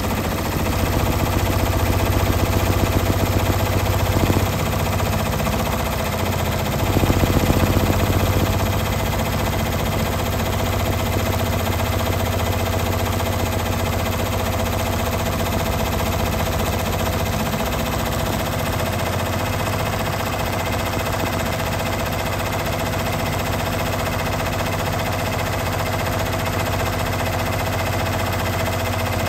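Brother multi-needle embroidery machine stitching at speed, a steady fast rattle of needle strokes with a constant motor hum. It is briefly louder around four seconds in and again around seven to eight seconds in.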